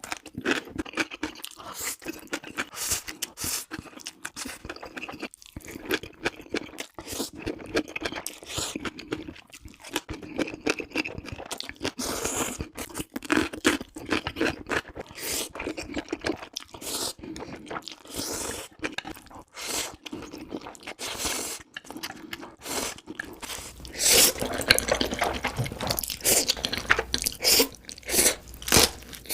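Close-miked eating: many quick bites and chewing of Korean black bean noodles (jjajangmyeon), getting louder and denser for the last few seconds.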